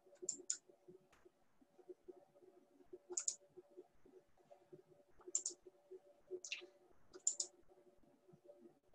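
Computer mouse clicking: five short, sharp clicks or quick pairs of clicks, a second or two apart, as a screen share is set up. A faint steady hum lies underneath.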